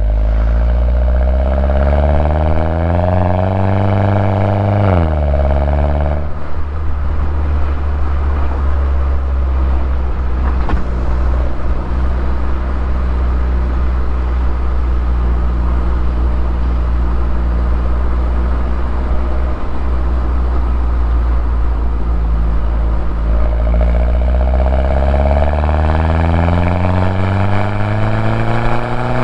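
2011 Mini Cooper S (R56) turbocharged 1.6-litre four-cylinder with its stock exhaust, under way. The engine pitch climbs under acceleration for the first few seconds and drops sharply about five seconds in. It then holds steady at cruise for a long stretch and climbs again near the end.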